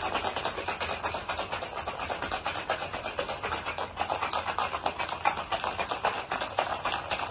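Ice cubes rattling hard inside a cocktail shaker being shaken vigorously: a fast, even, continuous clatter.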